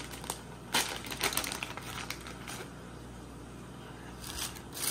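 Plastic soft-lure packet rustling and crinkling as it is handled and a soft plastic bait is pulled out, in scattered crackles, most of them in the first second and a half and again near the end.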